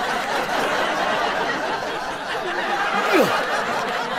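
An audience laughing together in a hall, a steady wash of many voices.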